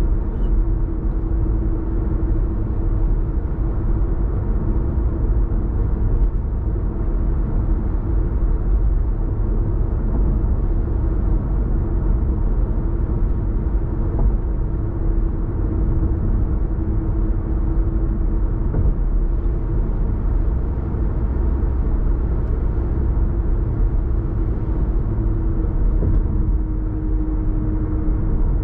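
Car cruising at expressway speed heard from inside the cabin: steady tyre and road rumble under the engine's drone, with a steady low hum throughout.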